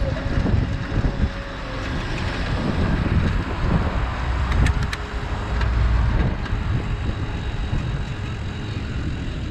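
Wind rushing over the microphone and road rumble from a cargo bike riding along a city bike track, with car traffic alongside. A few light clicks about halfway through.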